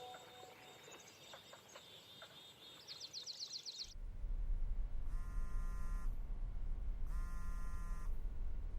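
Birds chirping for the first few seconds, then a steady low hum and a phone ringing twice, each ring a buzzy tone about a second long.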